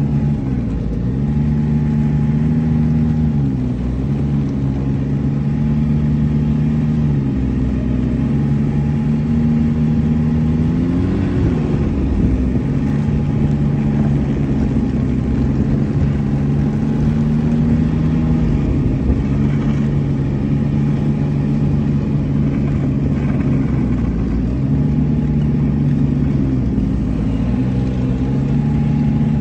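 Snowmobile engine running at low speed, its pitch dropping and climbing back several times as the throttle is eased off and on while the sled creeps along.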